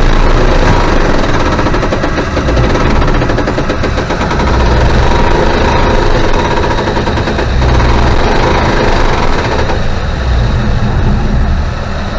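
Combine harvester running up close while picking soybeans: a steady engine drone under a fast mechanical clatter. It eases off slightly near the end.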